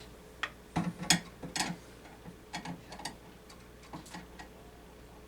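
Scattered light clicks and taps of hands and tools working a plastic smoke-detector mounting base loose, at irregular spacing, bunched near the start and sparser toward the end.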